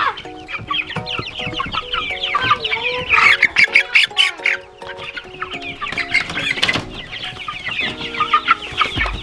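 A brooder of young chicks, Cornish cross broilers among them, peeping constantly, with many short falling chirps overlapping.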